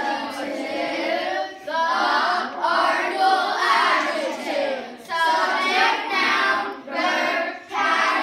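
A class of children chanting a grammar recitation in unison, in put-on deep voices, in short loud phrases with brief breaks between them.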